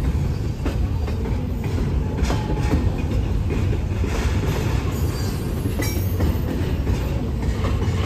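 Double-stack freight cars rolling past: a steady low rumble of steel wheels on rail, with occasional clacks over the rail joints and a faint high wheel squeal about five seconds in.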